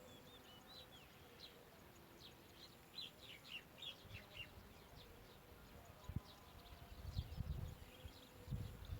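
Faint, thin, high bird chirps, many short notes with a quick cluster about three to four and a half seconds in. Low rumbling comes in near the end.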